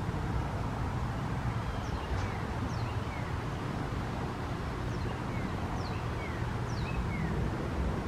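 A bird's short, thin, falling chirps repeat at irregular intervals through most of the clip, over a steady low background rumble.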